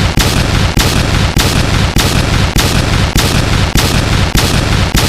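Loud, harsh weapon-attack sound effect: rapid repeated blasts, about three a second, merging into one continuous din.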